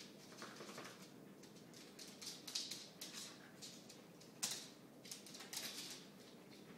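A dog and a cat play-fighting: soft, irregular scuffles and scratches of paws on a rug and wooden floor, with the loudest scuffle about four and a half seconds in.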